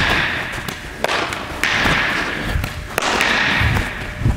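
Ground-ball fielding practice: a few sharp thuds and taps of a baseball against a leather glove, each followed by shoes scuffing on artificial turf.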